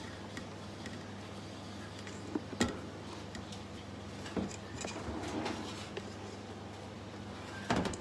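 Silicone spatula scraping and tapping against stainless steel mixing bowls as meringue is scooped and folded into egg-yolk batter, with a few light knocks of the spatula on the metal. A steady low hum runs underneath.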